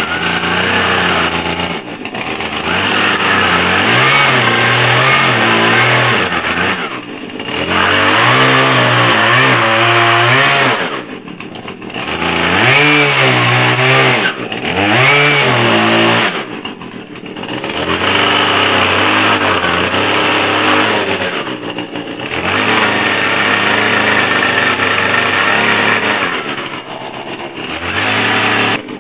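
Husqvarna 240 two-stroke chainsaw fitted with a 12-inch dime-tip carving bar, running and throttled up repeatedly in stretches of a few seconds, dropping back toward idle briefly between each.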